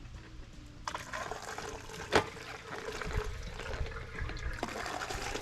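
Gasoline pouring from a gas can through a long funnel into a gas pressure washer's fuel tank, starting about a second in, with a single sharp knock a second later.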